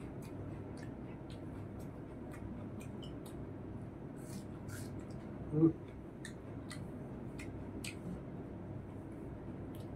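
Close-up eating sounds of a person eating rice with his fingers: scattered small wet mouth clicks and smacks over a steady low hum. A short, loud voiced sound, like a brief hum of the voice, comes a little past halfway.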